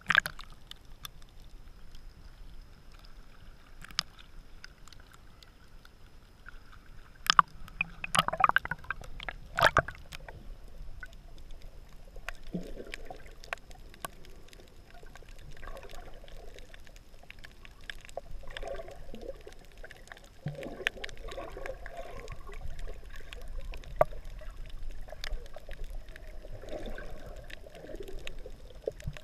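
Muffled water sloshing and gurgling around an action camera's waterproof housing underwater, with scattered sharp clicks and knocks, the loudest cluster about eight to ten seconds in.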